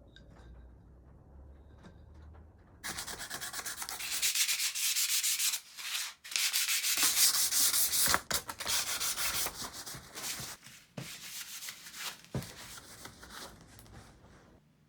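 Sanding of wood, an abrasive scratching that starts about three seconds in and goes on in stretches broken by a few short pauses.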